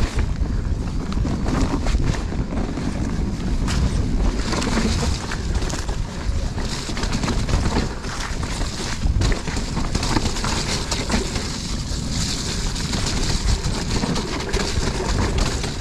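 Mountain bike riding noise on a wet, muddy forest trail: wind buffeting the microphone, tyres hissing through mud and water, and scattered clicks and rattles from the bike over roots and rough ground. The tyre hiss grows louder about halfway through.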